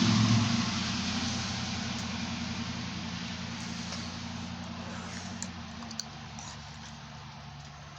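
A vehicle's engine rumble and hiss fading steadily away over several seconds as it moves off, leaving a low steady hum.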